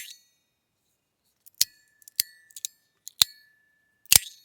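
Metal fidget slider fitted with small tuning forks, snapping back and forth in sharp clacks, five in all, several leaving a steady high ring that lasts until the next clack.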